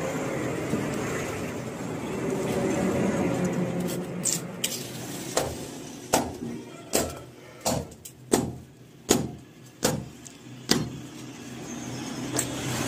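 Cleaver chopping through beef rib bones on a wooden chopping block: about eight hard blows, roughly one every 0.7 seconds, in the middle of the stretch. A steady background din runs before and after the chops.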